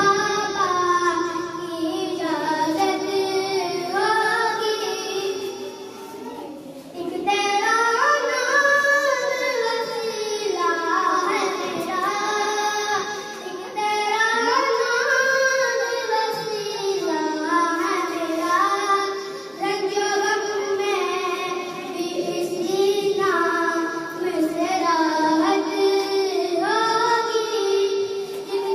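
A boy singing a naat solo in long melodic phrases, his voice amplified through a microphone and loudspeaker, with a short break about seven seconds in.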